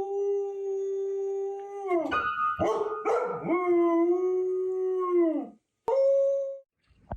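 A dog howling in long, held notes, each sagging in pitch as it ends. Near the end there is one short, higher note, then the sound cuts off suddenly.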